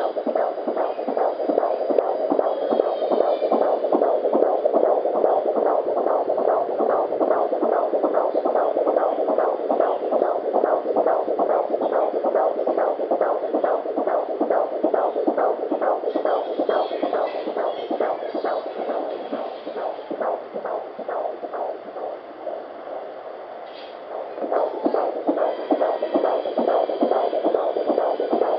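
An 18-week fetal heartbeat picked up by a Doppler monitor: a fast, even train of beats. It grows weaker for a few seconds past the middle and comes back strong near the end.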